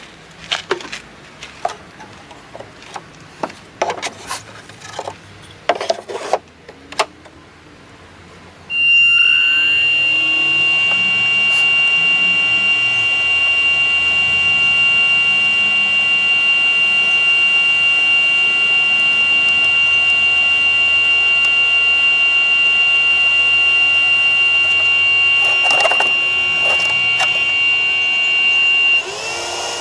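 Knocks and clicks of handling, then the winnower's small 12-volt blower fan switches on abruptly and runs with a loud, steady high-pitched whine over a hum. It winds down near the end.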